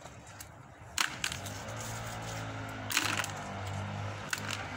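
Sharp metallic knocks, twice, as a catch on a magnet-fishing line is hauled up, over a steady low hum.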